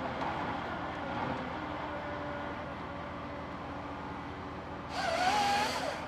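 Eltec tracked feller buncher's engine and hydraulics running steadily. Near the end comes a louder burst of rushing noise with a wavering whine in it, lasting about a second.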